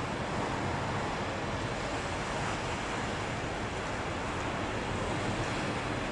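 Ocean surf: a steady, even wash of wave noise with no separate crashes standing out.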